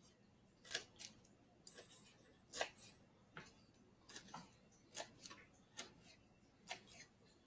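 A sharp kitchen knife chopping fresh dill weed on a cutting board: faint, irregular taps of the blade, one or two a second.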